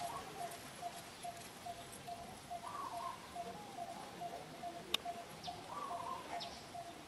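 Bird calling: a steady run of short notes, about three a second, with a higher warbled phrase about every three seconds. A single sharp click about five seconds in, and a few faint high chirps after it.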